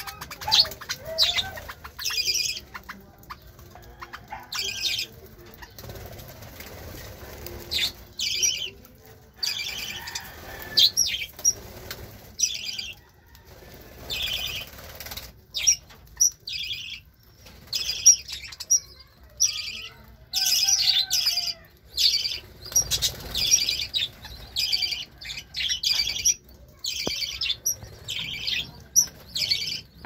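A flock of caged budgerigars chattering with many short, scratchy chirps in quick succession, with wings fluttering among them.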